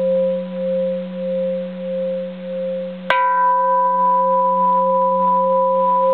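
A large bronze Japanese Buddhist temple bell ringing on with a slow wavering pulse as it dies away. About three seconds in it is struck again with a plastic hammer and rings out steadily. It has the clear, sustained ring of an uncracked bell.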